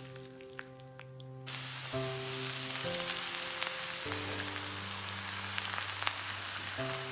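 Food sizzling as it fries in oil in a pan, the sizzle coming in about a second and a half in after a quieter start with a few light clicks, under background music with long held notes.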